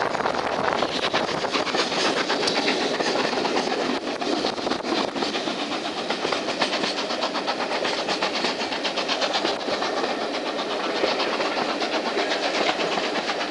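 A passenger train running at speed, heard from the carriage: a steady rush and rumble with rapid clicking of the wheels on the track.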